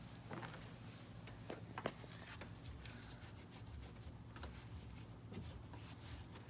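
Faint rubbing and scrubbing as the dirty taillight recess in the car body is wiped clean, with a few light knocks along the way.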